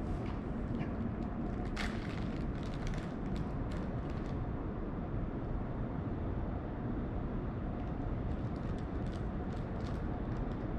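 Steady low rumble of outdoor background noise, with scattered light clicks and ticks in the first few seconds and again near the end.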